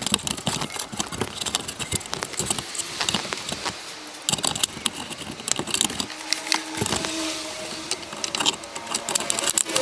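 Thin sheet-metal exhaust heat shield rattling and clicking as it is worked back into place, with a rapid, irregular run of small metal taps and a brief metallic ring.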